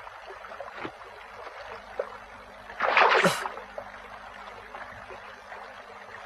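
Water lapping gently at the shore, with a sudden splash about three seconds in as a fish is jerked out of the water on a fishing line.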